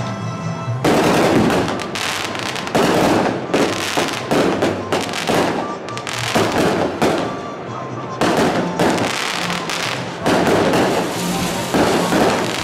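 Fireworks display: aerial shells bursting and crackling in dense, surging volleys, with music playing underneath.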